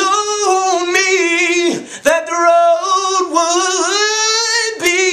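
A man singing a gospel song unaccompanied in a high voice, drawing out long notes with vibrato and melismatic runs, with a short breath about two seconds in.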